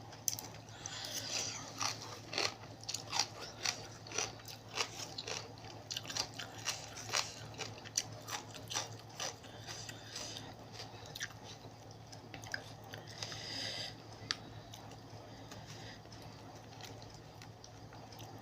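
A person chewing and crunching a mouthful of spicy seafood papaya salad close to the microphone. Quick crunchy clicks come thick for about the first ten seconds, then thin out.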